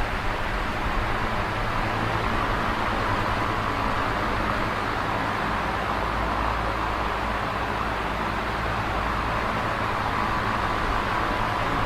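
Large box fan running steadily: an even rushing whoosh of moving air with a faint low hum beneath it.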